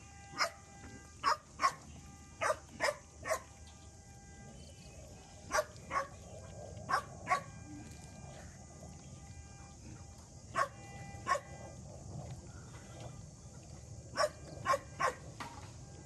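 A dog barking: about fifteen short, sharp barks in quick groups of two or three, with pauses of a few seconds between the groups.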